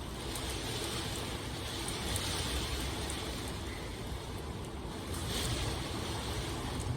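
Steady rain falling, an even hiss with faint scattered drop ticks, swelling slightly about two and a half and five and a half seconds in.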